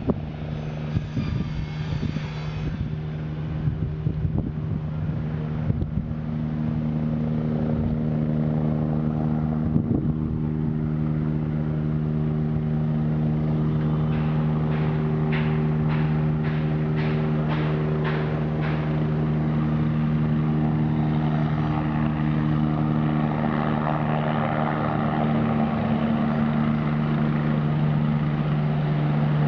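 AgustaWestland AW109 twin-turbine helicopter running on the ground with its rotor turning: a steady engine and rotor hum that grows louder about seven seconds in. Wind buffets the microphone near the start, and a run of about a dozen evenly spaced ticks comes midway.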